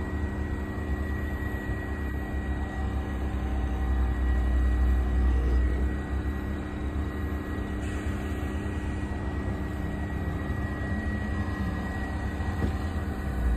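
Steady drone of heavy industrial machinery running: a low rumble under a constant high whine, swelling briefly about four to six seconds in.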